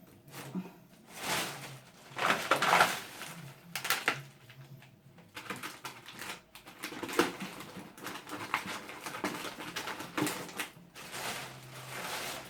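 Food packages and containers being handled, with bursts of plastic rustling and a few sharp knocks as items are set down.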